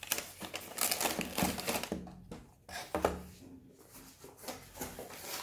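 Packaging being handled and opened by hand: rustling with quick scattered clicks and taps, busiest in the first two seconds, then a few separate knocks.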